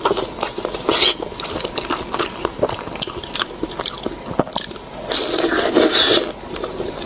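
Close-miked chewing: wet mouth smacks and quick clicks as food is bitten and chewed, with a couple of fuller chewing spells about a second in and again around five to six seconds.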